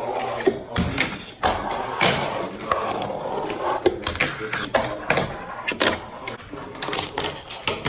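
Skateboards being ridden and used for tricks: a string of sharp clacks and thuds from boards popping and landing, over rolling wheels, with people's voices in the background.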